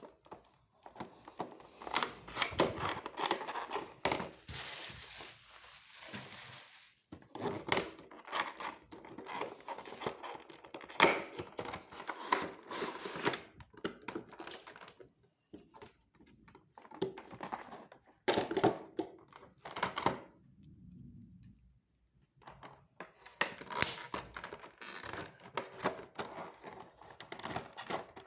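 Hands handling a diecast model airliner's packaging: cardboard and plastic rustling and crinkling, with irregular knocks and clicks. There is a longer stretch of rustling about five seconds in and a brief lull past the two-thirds mark.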